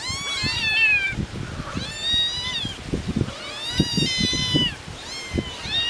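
Several kittens meowing insistently over one another in about four bouts of high, rising-and-falling calls: hungry kittens calling to their mother. Wind buffets the microphone underneath.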